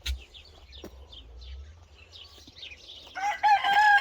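A rooster crowing loudly, starting about three seconds in with a long drawn-out note that runs on past the end. Before it come faint high bird chirps and a short thump at the very start.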